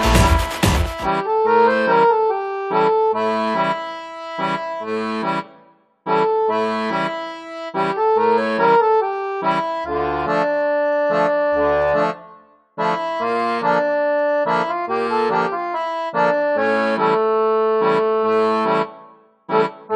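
Background music: a busy electronic dance track cuts off about a second in, and a bouncy melodic tune over regular bass notes follows, breaking off briefly three times.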